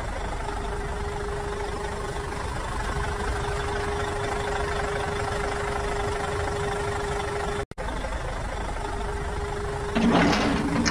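Engine idling sound with a steady hum. It cuts out for a moment about three-quarters of the way through, and a louder, rattling engine sound with clicks comes in near the end.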